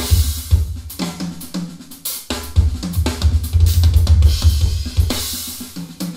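Drum kit recording playing back through Edifier R1855DB bookshelf speakers with the subwoofer switched on: kick drum, snare and cymbals in busy fills, with a deep, heavy kick bass. There is a short break about two seconds in.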